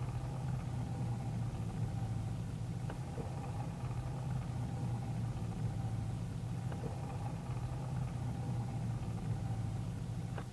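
Steady rumble of rushing air and the main-gear tyres rolling on the asphalt runway, picked up by a camera under the fuselage of a VL3 ultralight on its landing roll after a power-off landing.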